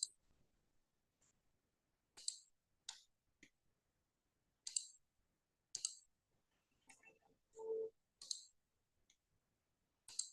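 Computer mouse clicking: about eight single, sharp clicks spaced irregularly a second or two apart.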